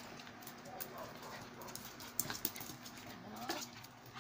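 Two dogs play-wrestling, their claws clicking and scrabbling on a hard floor, with a few faint whines.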